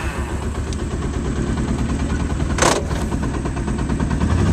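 A vehicle's engine running as it moves off, getting louder toward the end, with a brief clatter about two and a half seconds in.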